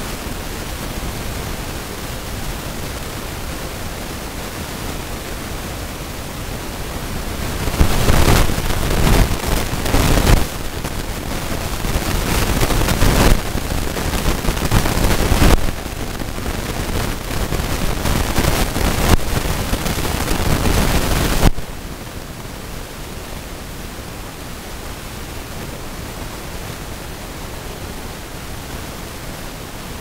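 Steady rushing hiss with no clear calls in it. It grows louder and uneven about eight seconds in, then drops back suddenly about two-thirds of the way through.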